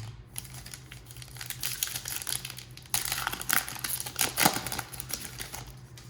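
Plastic trading-card pack wrapper crinkling and being torn open, in irregular crackles that grow louder about halfway through.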